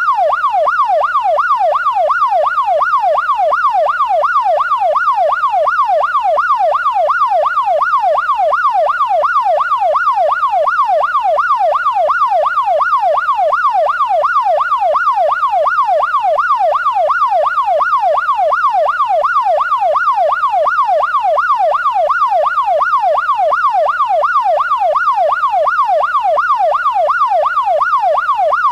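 Police car's electronic siren in its rapid yelp, a loud tone rising and falling evenly a little over twice a second without a break.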